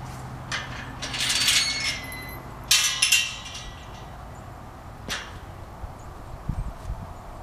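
Several short bursts of metallic clinking and rattling, the loudest about three seconds in and a shorter one about five seconds in, over a faint low hum.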